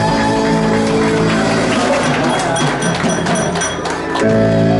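Live band playing a rock ballad: held chords, then a stretch of drum and cymbal hits about two seconds in, and a fresh full held chord near the end.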